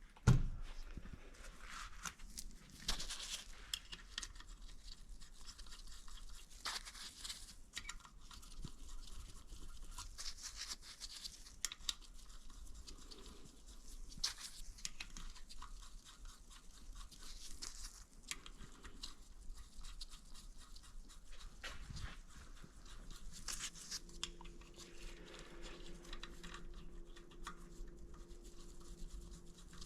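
Scattered light clicks, scrapes and taps of hand tools and metal parts being handled while an engine is taken apart, with a faint steady hum joining in near the end.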